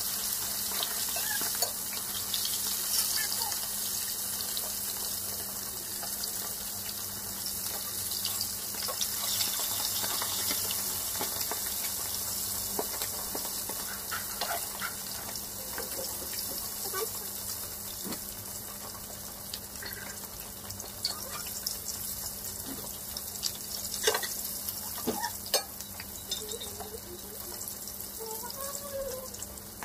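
Whole fish shallow-frying in hot oil in a wok: a steady sizzle with scattered pops and crackles, easing a little over time.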